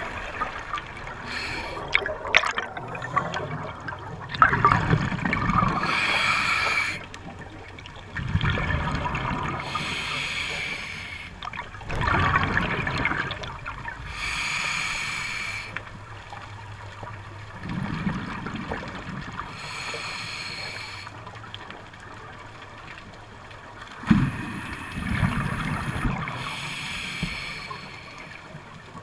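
A scuba diver breathing through a regulator underwater, heard through the camera's waterproof housing. About five breath cycles: each is a hiss from the regulator followed by a burst of exhaled bubbles burbling away, one cycle every four to six seconds.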